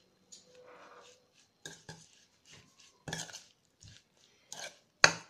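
Metal spoon stirring raw chicken pieces coated in spices in a bowl: wet squishing and scraping with a series of irregular clicks and knocks of the spoon against the bowl, the sharpest knock near the end.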